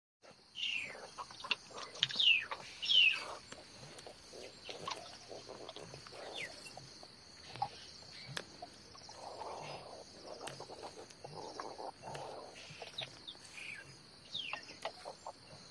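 Outdoor wildlife ambience: a steady high insect drone, with several sharp, falling bird calls, loudest in the first three seconds. There are scattered light clicks of leaves being handled.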